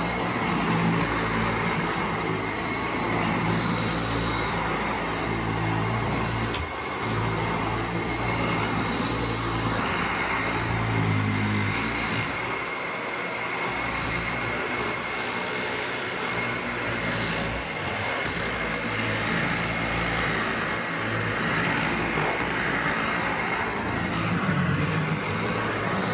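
Dyson Ball Animal upright vacuum cleaner running steadily on a rug, with a thin high whine over its motor noise. Its lower hum swells and fades as it is pushed back and forth.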